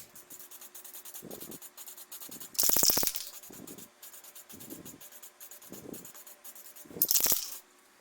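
Aerosol can of copper spray paint hissing in two short bursts, about two and a half seconds in and again near the end, as paint goes onto keycaps. A faint low pulse recurs about once a second underneath.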